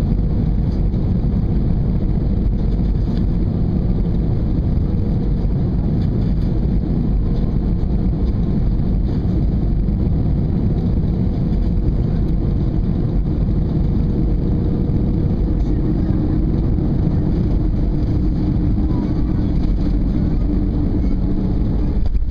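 Steady cabin noise of an Airbus airliner on final approach, a low rumble of engines and rushing air heard from a window seat. A faint humming tone comes in about two-thirds of the way through.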